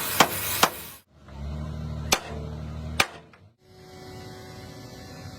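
Sharp hammer blows on steel, three in the first second and two more over a low machine hum, then a quieter steady hum near the end.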